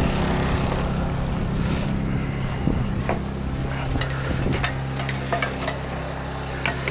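Portable generator engine running steadily at high idle, with a few light clicks and knocks of handling in the second half.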